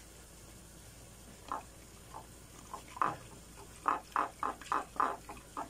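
Whisk stirring powdered milk into a little water in a ceramic bowl to dissolve it. A few separate strokes start about a second and a half in, then quicken to about four strokes a second near the end.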